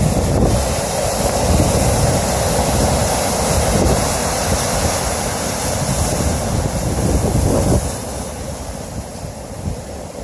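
Storm surf breaking heavily on the shore, a dense, loud wash of water noise, with wind buffeting the microphone. It eases off somewhat about eight seconds in.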